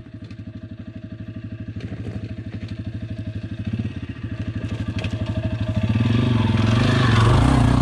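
Yamaha XT250's air-cooled single-cylinder engine running at low revs as the dirt bike comes down a rocky trail toward the listener. It grows steadily louder and is loudest near the end as it comes close.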